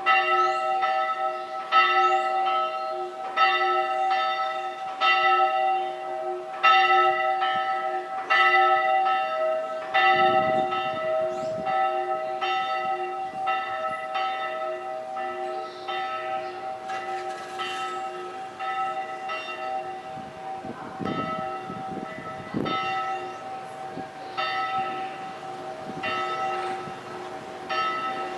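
Church bells ringing, struck about once every second and a half, each stroke laid over the lingering hum of the bells. The strokes grow softer and less regular in the second half.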